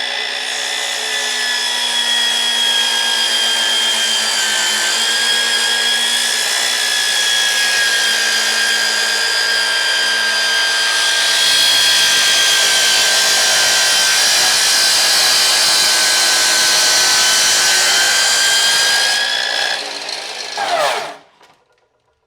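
Ryobi 36V cordless miter saw running at full speed with a steady high whine as the blade cuts through a board, louder through the second half. Near the end the motor is released and winds down, its pitch falling until it stops.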